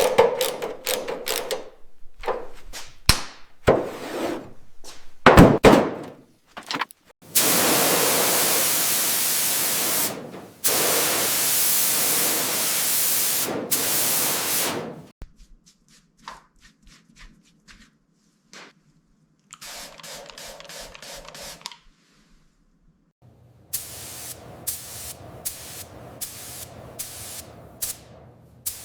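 Workshop tool sounds: a run of sharp knocks and taps, then a loud steady hiss of about seven seconds, broken once briefly, then quieter clicking and rattling.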